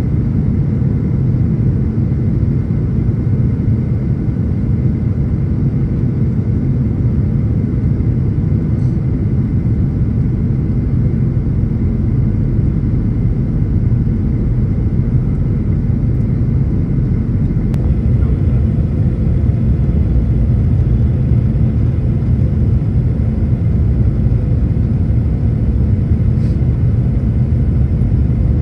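Steady low rumble of engine and airflow noise in the cabin of a Boeing 737 MAX, its CFM LEAP-1B engines at approach power as it descends to land.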